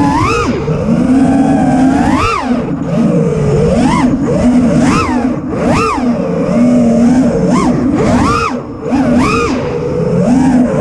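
Freestyle FPV quadcopter's four electric motors and propellers whining. The pitch surges up and falls back again about once a second as the throttle is punched and cut through the manoeuvres.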